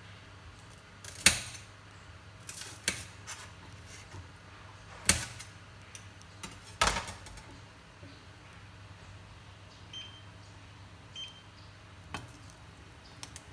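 Scattered sharp clicks and clinks a few seconds apart over a low steady hum, with a lidded pot of soup simmering on a cooktop. The last clink comes as a hand takes hold of the glass pot lid.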